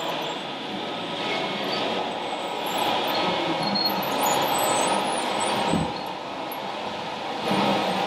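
Steady mechanical running of radio-controlled model construction machines at work, including a model MAN skip-loader truck's hydraulic arms lowering its skip container.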